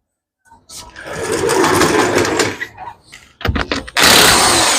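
Car lift being lowered: a motor runs for about two seconds, a few sharp clicks follow around three seconds in, then a loud rushing hiss with faint falling tones sets in.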